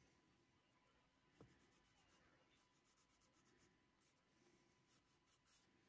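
Near silence, with the faint scratch of a sanding stick rubbing on a small plastic model part and a few soft ticks.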